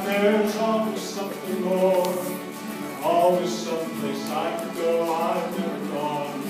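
Live acoustic band playing a song: several acoustic guitars and a bowed fiddle, with voices singing.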